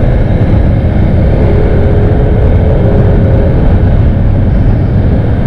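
Steady loud wind rumble on the microphone mixed with the engine and road noise of a Yamaha NMAX 155 scooter being ridden.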